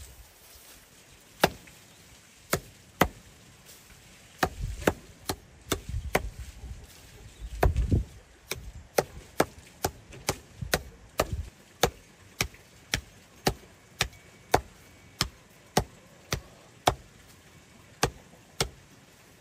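Hatchet chopping dry straw on a wooden stump, cutting it into short lengths: a long series of sharp chops, a few scattered at first, then steady at about two a second.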